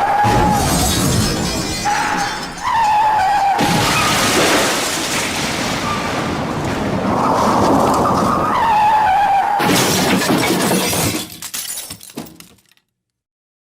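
Rubber duck squeaky dog toy being squeezed: a string of long, airy squeaks with a wavering whistle-like tone, fading out and stopping near the end.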